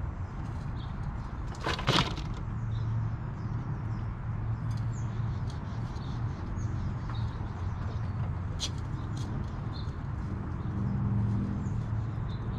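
California ground squirrels scrabbling and nibbling around a seed feeder on a wooden deck, with scattered small clicks and one loud scrape or knock about two seconds in. A low steady hum runs underneath.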